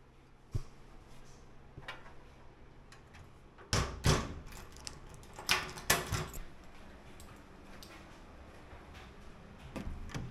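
A locker door shut with a clatter, then a key rattling and turning in the locker's lock. Near the end a lever door handle clicks.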